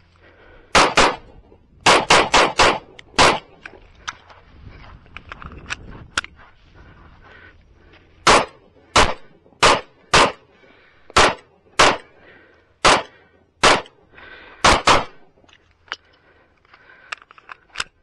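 Sig Sauer P365 9mm pistol firing a course of fire, about seventeen shots. A quick pair and a fast string come in the first three seconds or so. After a pause of several seconds, evenly spaced shots follow from about eight seconds in, ending in a final pair near fifteen seconds.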